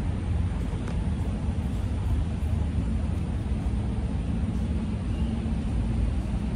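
Steady low background rumble of outdoor ambient noise, with no distinct events standing out.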